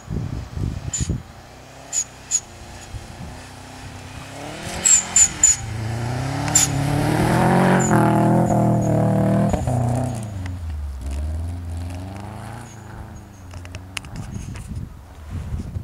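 Subaru Impreza WRX's turbocharged flat-four engine revving and wavering in pitch as the car slides past through deep snow, getting loudest about halfway through and then fading as it drives away. Sharp clicks come in the first few seconds.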